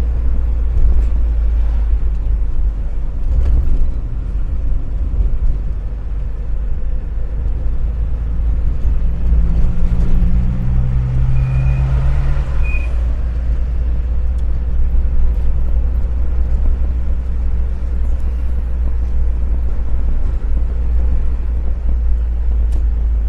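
Steady low rumble of a vehicle being driven along a road: engine and road noise. A brief low hum joins it near the middle.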